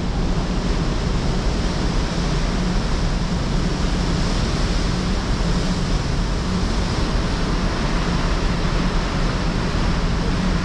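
Steady rush of wind and churning wake water on the open deck of the ferry Ogasawara Maru under way, over a low steady hum from the ship.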